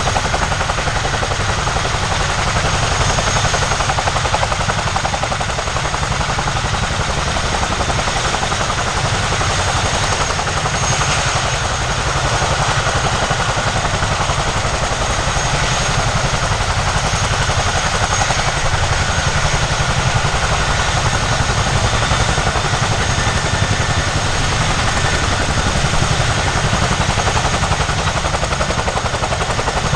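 RAF Chinook tandem-rotor helicopter running close by, its twin rotors beating in a rapid, unbroken chop, with a faint high steady whine over it.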